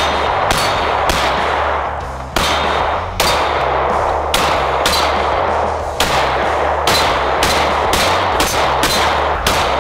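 Walther PDP full-size striker-fired pistol firing rapid strings of shots, roughly two a second, with a short pause about two seconds in.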